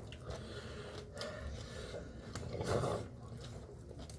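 Soft eating sounds close to the microphone: chewing and breathing with a few light clicks.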